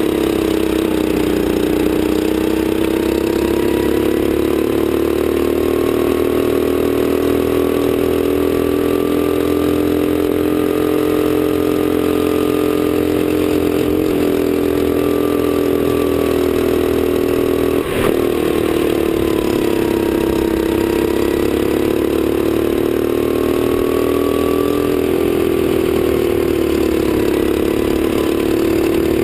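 Sodi kart engine running under load on track, heard from on board. Its pitch drops when the kart lifts for corners and climbs again under throttle on the straights. A single sharp knock comes about two-thirds of the way through.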